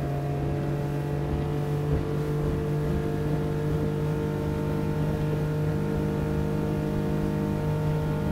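Honda BF60 four-stroke outboard motor running steadily at high speed, its note holding one even pitch.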